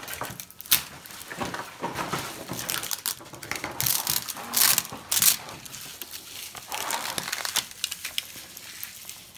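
Plastic toy wrappers being crumpled and squeezed by hand: irregular crinkling and crackling, loudest around the middle.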